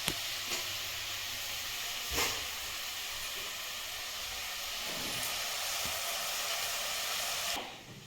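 Steady hiss at the cooking stove, cutting off abruptly near the end, with a couple of light knocks.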